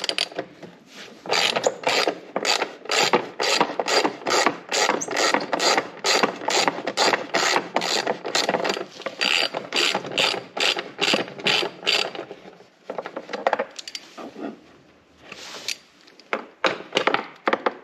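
Hand socket ratchet clicking in quick repeated strokes, about three a second, as it backs out a screw on a zero-turn mower deck's belt cover; the clicking pauses about twelve seconds in and resumes near the end.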